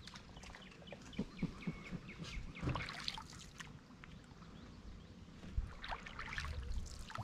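Birds of prey calling: a quick run of short, falling calls in the first few seconds, then a few more near the end.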